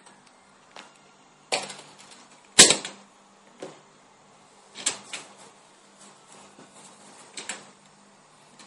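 Cardboard phone box handled on a wooden table: a string of short knocks, scrapes and rustles as it is picked up, turned over and set down, the loudest about two and a half seconds in.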